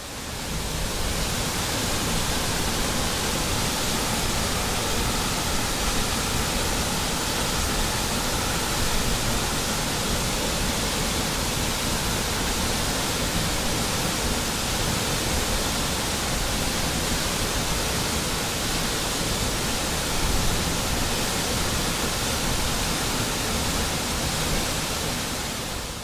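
Waterfall cascading down a rock face: a constant, even rush of falling water with no distinct events. Its spectrum falls off with rising pitch, a natural example of pink (1/f) noise.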